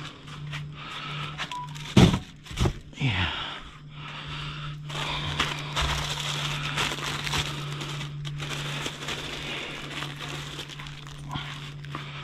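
Plastic food packaging crinkling and rustling as bagged bread and produce are handled and loaded, with a few heavy thumps about two to three seconds in, over a steady low hum.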